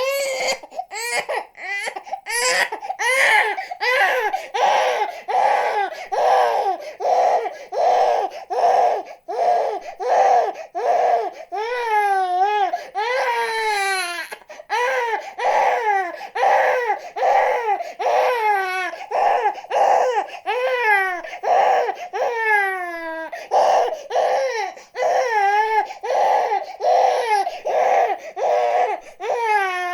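Infant crying hard in short, rhythmic wails, about one and a half a second, with a few longer wails that fall in pitch around the middle.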